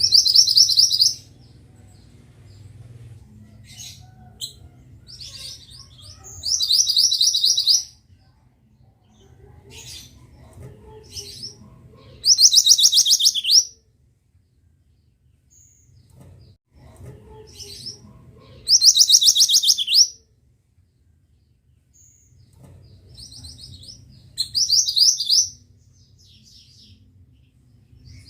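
A mantenan songbird singing a short, fast, rattling trill phrase about every six seconds, five times, with softer scattered chirps in between. A faint low hum sits underneath.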